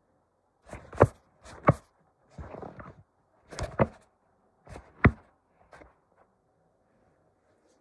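Handling noise: four sharp plastic clacks and a short rustle as a plastic DVD case is moved about and set upright on a bed.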